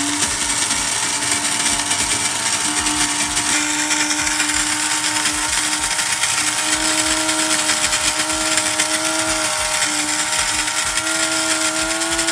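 Gourmia electric burr coffee grinder running on its finest setting and grinding coffee beans: a steady motor hum over a loud grinding hiss, the hum's pitch creeping up slightly over the run.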